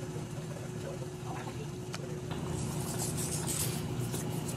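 Fresh ravioli going into a pot of boiling salted water: soft plops, then splashing and bubbling from about halfway through, over a steady low hum.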